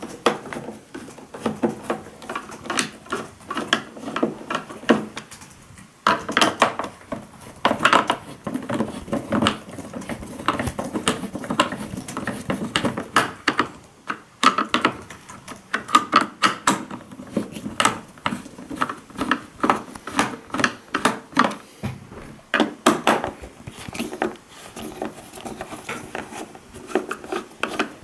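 Flat-blade screwdriver prying apart an LCD TV's plastic casing along its seam: many irregular clicks, snaps and scrapes of plastic on plastic and metal.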